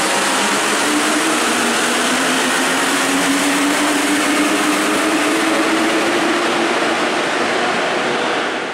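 Paris Metro train pulling out of the station behind platform screen doors: a steady rushing rumble with a faint motor whine that rises slowly in pitch as it gathers speed.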